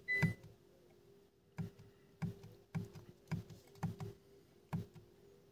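Kia EV6's right-hand regen paddle on the steering wheel being pulled again and again, about seven clicks roughly half a second apart, stepping the regenerative braking level down to zero. A faint steady hum runs underneath.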